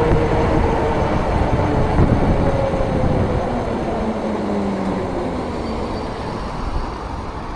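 Riding noise from a RidstarQ20 electric bike on a wet road in the rain: wind rushing over the microphone and tyre hiss, with a faint whine that slowly falls in pitch.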